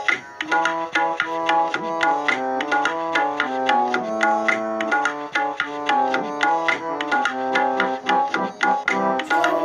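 Instrumental introduction to a Sikh shabad (devotional hymn): steady tabla strokes under a melody of held notes that step up and down.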